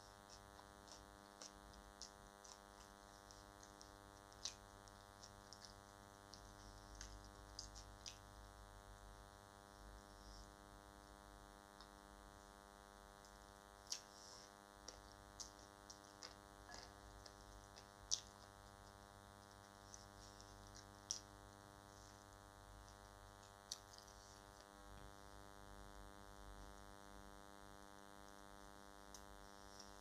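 Faint, steady electrical hum with many even tones. Over it come scattered soft clicks and smacks from eating biryani rice by hand and chewing, with a handful of sharper clicks standing out.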